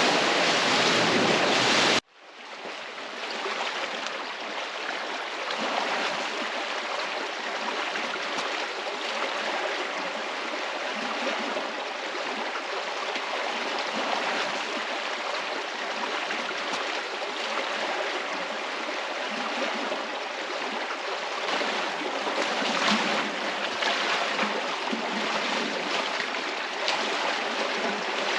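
Steady rush and splash of river water, as from a paddle board moving on a river. About two seconds in, a louder, hissier noise stops abruptly at a cut.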